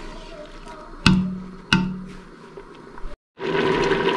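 A wooden spoon knocking twice against the metal pressure cooker pot while stirring boiled chickpeas, each knock ringing briefly in the pot. Near the end a steady hiss starts from the steaming pot.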